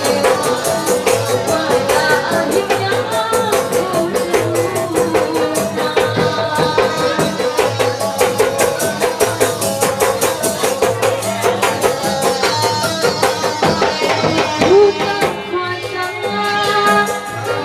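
Festive music with a fast, busy hand-drum and rattle rhythm and a singing voice over it.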